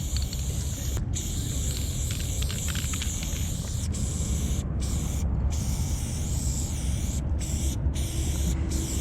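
Aerosol spray paint can hissing in long bursts, cut by short pauses about six times, over a steady low rumble.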